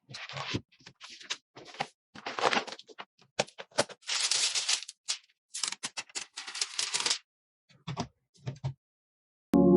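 Computer parts being handled and fitted during a PC build: irregular clicks, taps and rattles, with a few longer stretches of rustling and scraping. Music starts right at the end.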